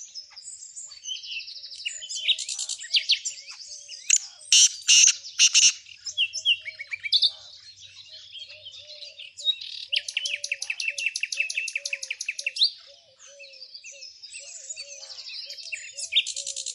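Several small songbirds singing and chirping together in fast, overlapping trills and chirps, loudest in a run of sharp calls around five seconds in. A softer, lower note repeats underneath from about six seconds on.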